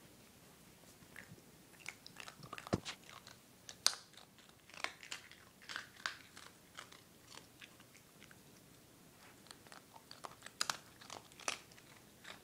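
A small Chinese crested powderpuff dog biting and chewing a hard treat: irregular crunches at uneven intervals.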